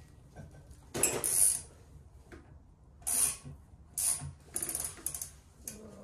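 Hand ratchet wrench clicking in several short bursts of strokes as a bolt is worked loose, with a quick run of clicks about four and a half seconds in.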